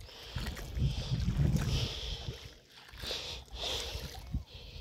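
Footsteps sloshing through shallow tidal water, a watery swish about once a second, over a low rumble of wind on the microphone.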